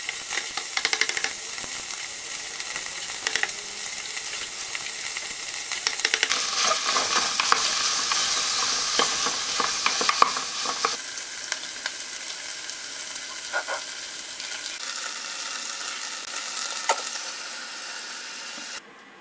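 Meat frying and sizzling in a pot on a gas stove while a wooden spoon stirs it, with scraping and short knocks of the spoon against the pot. The sizzle is loudest from about six to eleven seconds in, then settles.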